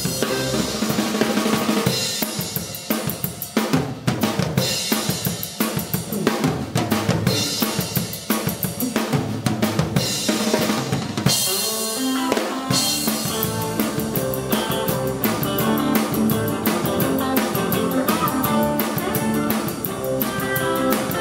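A live instrumental surf-rock band playing, with the drum kit to the fore: hard, steady bass drum, snare and tom hits under electric guitar and bass. The drums ease back briefly about halfway through, then the full band comes back in.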